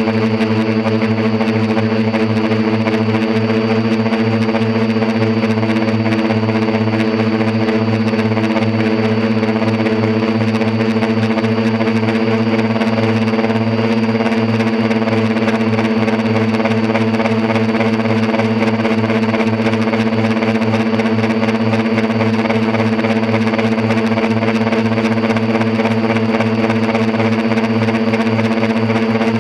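Quadcopter's electric motors and propellers humming at a steady, unchanging pitch, picked up by a camera mounted on the craft.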